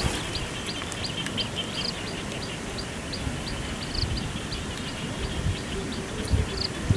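Open-air ambience with a small creature's short high chirp repeating a little over twice a second, a slightly louder, longer call about every two seconds, over a steady high background trill. Wind rumbles on the microphone.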